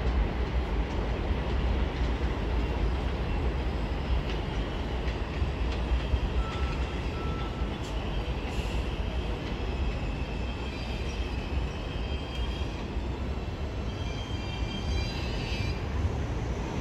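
New York City Subway 4 train approaching on an elevated steel structure, its wheels on the rails making a steady low rumble. High squealing from the train comes in over the second half, several tones at once, and grows stronger near the end.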